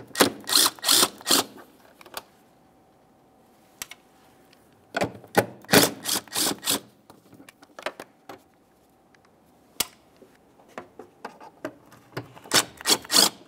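Cordless impact gun with a socket on an extension spinning off the air filter housing's 11mm mounting nuts, in three short bursts of rapid hammering.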